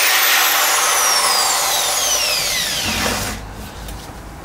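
Green Bosch CSB 650-2 corded drill running as it bores a hole through a sheet-steel battery box. Its whine falls steadily in pitch, then stops about three seconds in, leaving light handling knocks.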